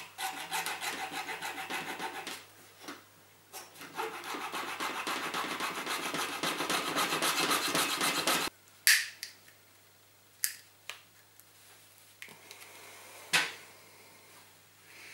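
Hacksaw cutting through the moulded body of a mains cable connector along its seam, in quick back-and-forth strokes: about two seconds of sawing, a short pause, then about four seconds more. After that come a few sharp clicks and knocks.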